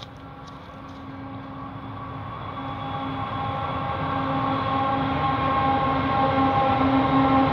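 Diesel locomotives hauling a coal train, approaching and running onto a bridge: an engine drone with a steady whine of several tones, growing steadily louder.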